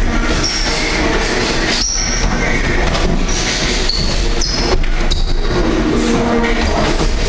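Boxing sparring in a ring: gloves landing and feet shuffling and thudding on the ring canvas, with a few sharp knocks, over a loud steady din.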